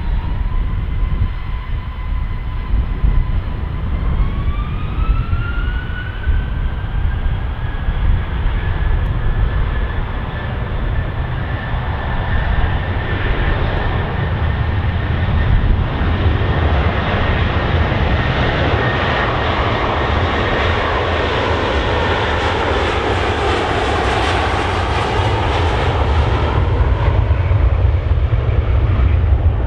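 Jet airliner on its takeoff run. The engine whine rises in pitch a few seconds in and then holds, and the roar builds as the aircraft accelerates, peaking and sweeping in pitch as it passes close by near the end. A steady low rumble runs underneath.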